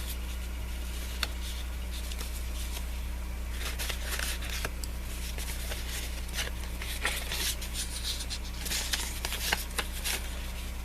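Paper and thin plastic packaging rustling, with scattered light clicks and taps as small paper craft pieces and sticker packs are handled. A steady low hum runs underneath.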